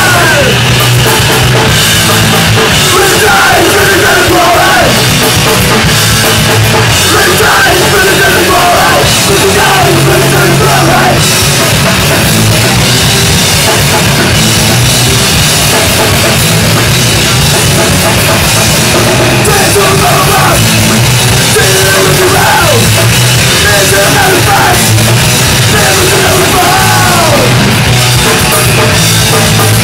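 Punk rock band playing live: loud distorted guitars, bass and a pounding drum kit, with shouted vocals, recorded from the audience with heavy clipping.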